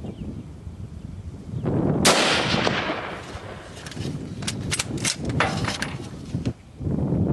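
A single rifle shot about two seconds in, sharp, with a short rolling echo, followed a couple of seconds later by a quick run of sharp clicks.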